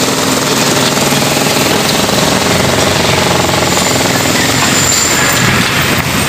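Jackhammer breaking concrete: a rapid, continuous hammering that keeps an even level throughout.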